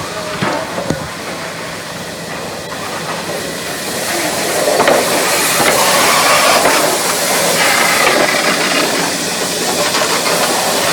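Steam locomotive hissing steam, the hiss swelling louder about four seconds in and holding strong, after a few sharp clicks in the first second.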